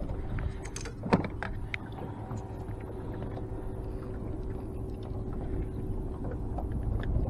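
Steady low rumble of wind and water around a small fishing boat, with a faint steady hum. A few small sharp clicks and ticks come from fishing forceps and hands working a hook out of a crappie's mouth. The sharpest click is about a second in.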